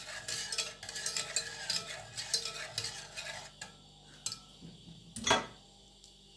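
A wire whisk stirs milk in an enamel pot, its wires ticking and scraping rapidly against the pot. After about three and a half seconds it thins to a few light taps, and a single louder knock comes about five seconds in.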